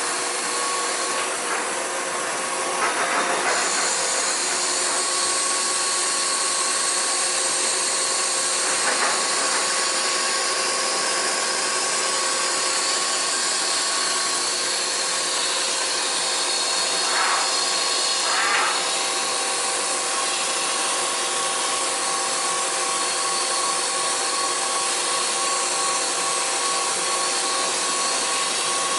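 Kuraki KBT-11WA CNC horizontal boring mill running with a steady machine noise and several steady whining tones over a hiss. A few short rasping swells come and go.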